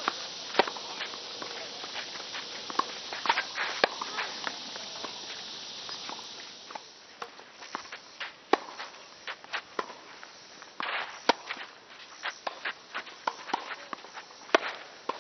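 Tennis rally: sharp pops of rackets striking the ball and the ball bouncing, mixed with shoe scuffs on the court, spaced irregularly. A steady hiss sits under the first half and drops away about halfway.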